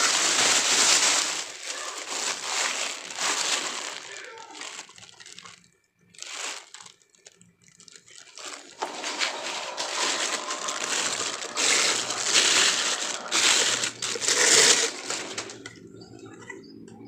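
Plastic packaging crinkling and rustling as it is handled, in uneven spells with a quiet pause around the middle.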